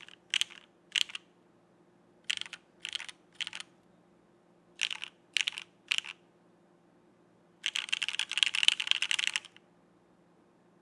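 Typing on a Geonworks Frog mechanical keyboard with TTC Wind linear switches, their stems lubed with Krytox 205g0, mounted on an aluminium plate. Three groups of three separate keystrokes about half a second apart, then a fast run of typing lasting about two seconds near the end.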